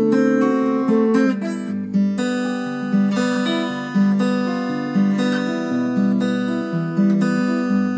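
Acoustic guitar strumming chords in an instrumental passage, with the chord changing about once a second.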